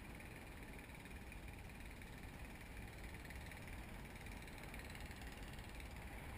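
Faint, steady wind rush on a GoPro action camera's microphone high in the air under a parasail: a low rumble with a soft hiss over it.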